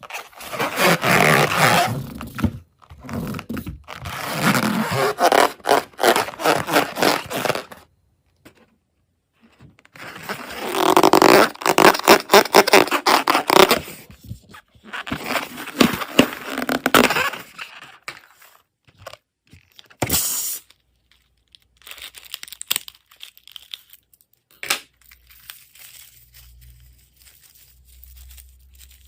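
Slime and balloons being handled: two long runs of dense scraping, crackling and squishing, then softer scattered taps and clicks near the end.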